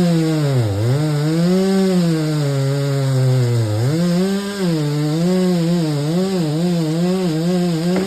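Two-stroke chainsaw cutting wood at high revs. Its engine note sags as the chain bites into the cut, sharply about a second in and again near four seconds, then recovers, wavering with the load, before cutting off at the end.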